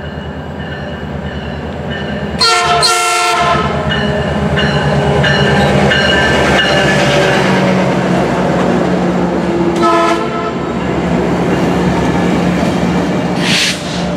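Metrolink commuter train led by an MPI MP36 diesel locomotive pulling into the platform, its engine drone growing louder as it nears and passes. Its horn sounds for about a second some two seconds in, with a shorter note around ten seconds in and a brief hiss near the end.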